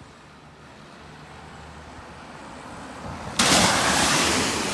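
A car's low engine rumble slowly growing louder as it comes on at speed, then a sudden loud rush of noise about three and a half seconds in.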